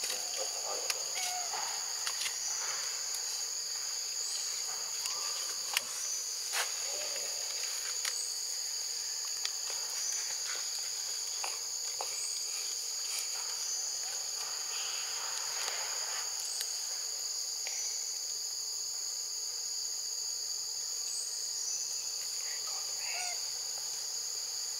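Steady chorus of insects: a continuous high buzz in two pitches. A few faint clicks and brief chirps are scattered over it.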